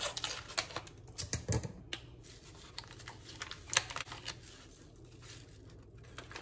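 Paper packet of Jell-O instant vanilla pudding mix crinkling and rustling as it is opened and tipped out over a jug of milk: irregular sharp crackles, busiest in the first two seconds, with one loud crack near four seconds.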